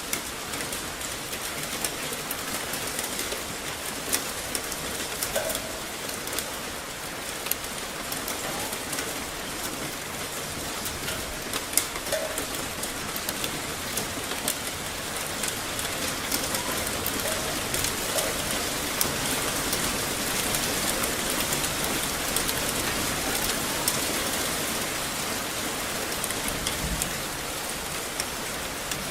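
Steady rain falling on hard surfaces, a continuous wash with many individual drops ticking sharply through it.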